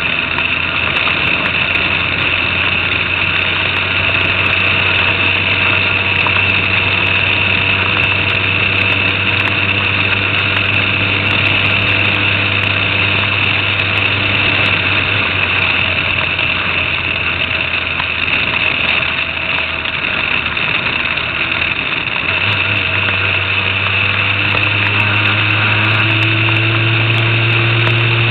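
Formula Renault 2.0 car's four-cylinder engine heard onboard, running at steady low revs, with a constant hiss over it. About three quarters through the pitch steps up a little and then climbs slowly.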